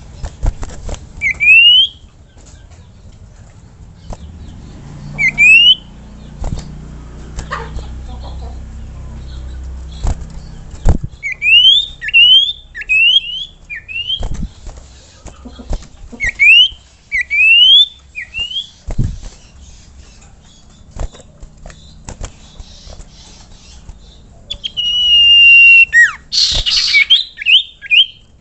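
Common iora (cipoh) calling: short, rising whistled notes, some single and some in quick runs of three or four. Scattered clicks run under the calls, and a loud harsh burst comes near the end.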